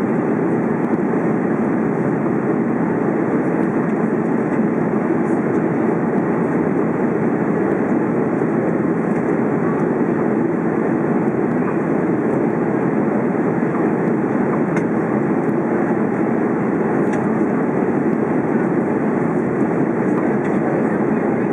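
Steady cabin noise of an Airbus A330 in flight, heard from a window seat over the wing: an even drone from the turbofan engines and rushing air, with no change in level.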